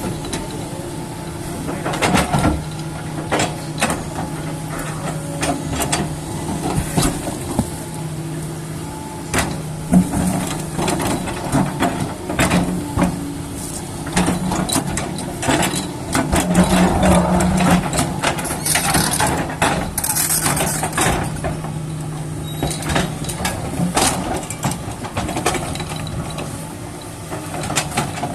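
JCB excavator's diesel engine running steadily under load, with frequent knocks and clatter from the machine working.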